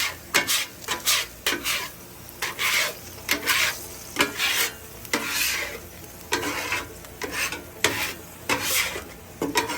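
Scraper strokes pushing water across the hot steel top of a Blackstone griddle, in repeated short scrapes, with the water sizzling on the hot surface.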